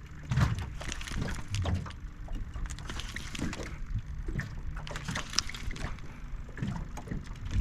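A small fishing boat on the water, with irregular knocks and low thumps against the hull and scattered clicks, while a catfish is being reeled in.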